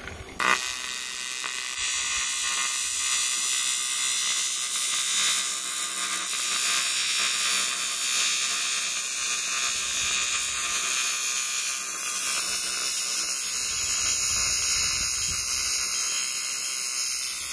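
TIG welding arc buzzing steadily on a cast-aluminum 4L80E transmission bellhousing as filler rod is fed into the puddle. The buzz starts sharply about half a second in as the arc strikes.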